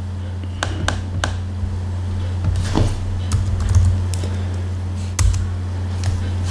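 A few separate computer keyboard keystrokes, spaced irregularly, over a steady low electrical hum.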